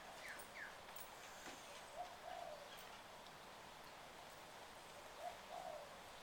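Faint cooing of a dove, two soft two-note coos a few seconds apart, over quiet background hiss.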